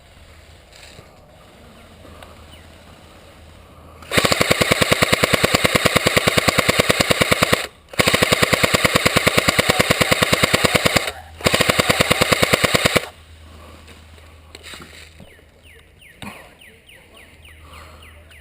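Airsoft electric gun firing on full auto in three long bursts of rapid clicking shots, about three and a half seconds, three seconds and a second and a half long, with short breaks between.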